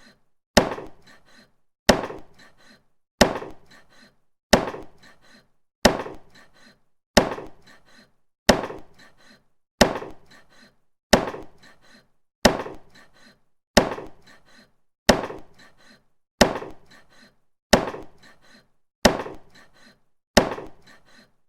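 Butcher's meat cleaver striking meat with hard chopping blows, about one every 1.3 seconds. Each is a sharp thunk that dies away quickly.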